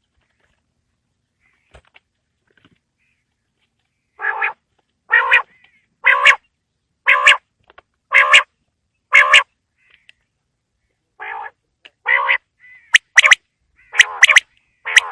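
Quail calling: a series of short, harsh notes about one a second, beginning about four seconds in, then after a short pause a quicker run of notes with a few sharp clicks among them near the end.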